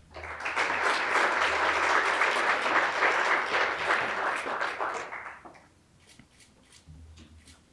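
Audience applauding a graduate, dying away after about five and a half seconds. A few faint clicks follow in a quiet room.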